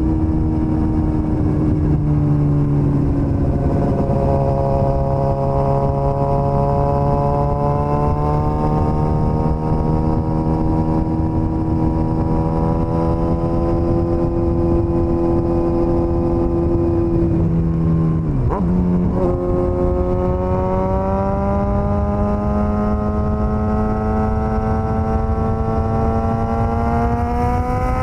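Suzuki GSX-S1000's inline-four engine running under way at a steady, slowly changing pitch over a constant rushing noise. About eighteen seconds in its note dips sharply and recovers, then climbs steadily as the bike accelerates.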